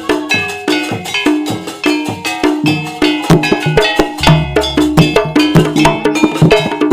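Instrumental passage of a live East Javanese gamelan-style ensemble: rapid struck metal notes and percussion, several strokes a second, over a held pitched tone and low drum strokes, with no singing.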